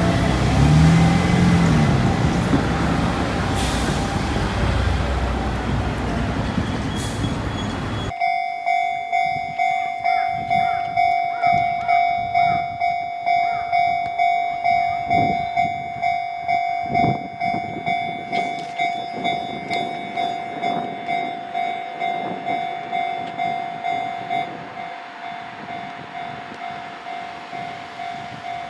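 A train passing close by, a dense rumble, then an abrupt cut about eight seconds in to a Japanese level-crossing alarm ringing. The alarm is a steady tone in even pulses, about one and a half a second, and drops a little in level near the end.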